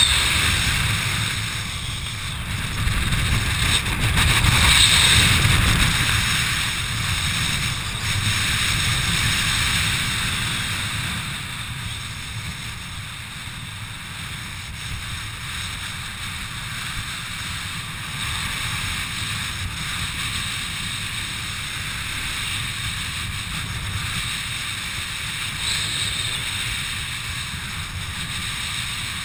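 Wind rushing over a helmet camera's microphone during a descent under an open parachute. It is strongest in the first several seconds, then eases to a steadier, softer rush.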